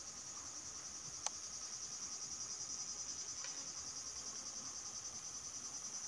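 Steady high-pitched chirping of an insect chorus, with one sharp click about a second in.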